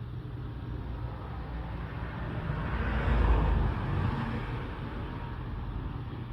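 Steady low traffic rumble with a vehicle passing by, its sound swelling and fading, loudest about three seconds in.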